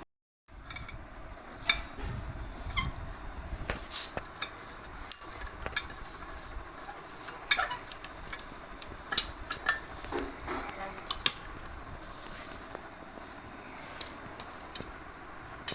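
Irregular metallic clinks, taps and knocks of tools and parts being handled while a basin mixer tap is worked on, with the sharpest knock about eleven seconds in.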